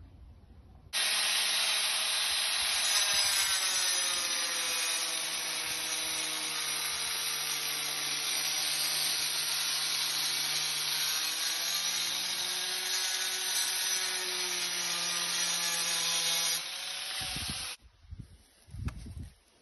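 Electric power tool running for about sixteen seconds, as in sanding or grinding work, its pitch wavering slowly as the load changes. It starts abruptly about a second in and cuts off abruptly near the end.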